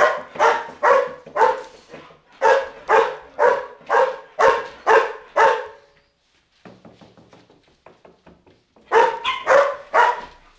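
Chihuahua barking in high-pitched yaps, about two a second: a run of about a dozen, a pause, then another short run of four or five near the end.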